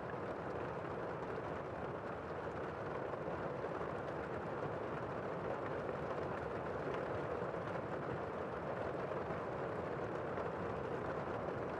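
Heavy rain heard from indoors, muffled: a steady, even hiss with a few faint ticks of drops.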